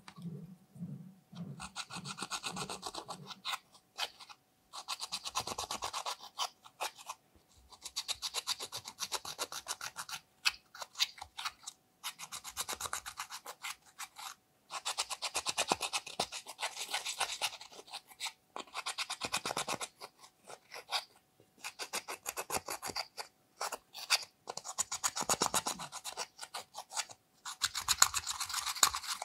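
A small metal tool scraping pressed eyeshadow powder out of a plastic palette's pans, in repeated bouts of fast scratching one to three seconds long, with short pauses between them.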